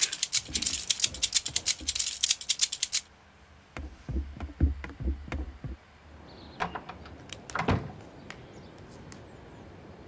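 A fast, even run of light clicks, about ten a second, lasting about three seconds, then a few soft low thumps and two or three single clicks.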